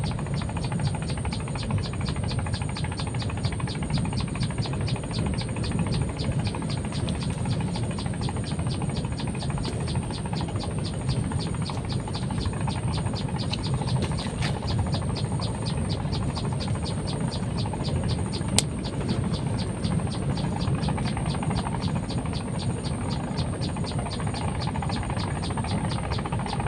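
Insects chirping steadily in a high, fast, even pulsing, over a low steady rumble, with one sharp click about two-thirds of the way through.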